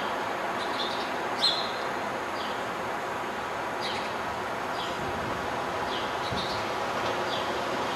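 Small birds chirping repeatedly in short, falling chirps, one louder chirp about one and a half seconds in, over a steady rush of background noise.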